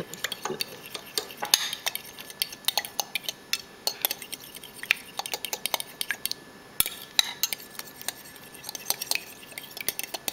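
A metal fork beating eggs in a glass bowl, the tines clicking rapidly and irregularly against the glass, with a short lull a little past the middle.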